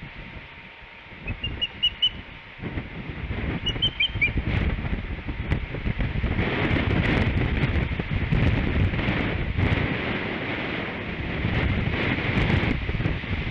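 Osprey giving two short runs of high whistled chirps, the first about a second in and the second around four seconds. Strong wind buffets the microphone and rustles the tree, growing much louder from about three seconds in.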